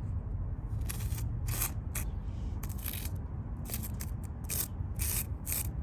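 Repeated short scraping strokes, about a dozen at an uneven pace: a hand tool scraping dirt and sand out of the joints between paving stones, over a steady low rumble.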